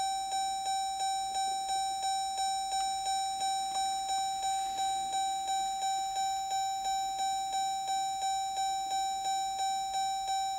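Car's warning chime ringing over and over, about three bell-like dings a second, each fading quickly: the driver's door is open with the key in the run position.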